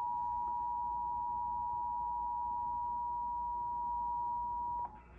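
Emergency Alert System attention signal: a loud, steady two-tone alarm held on one pitch, which cuts off suddenly near the end.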